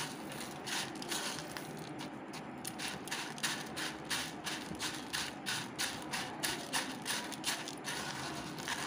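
Crushed dry Maggi instant noodles crunching and rustling under a hand pressing a potato cutlet into them in a bowl, in quick repeated crackles about three or four a second.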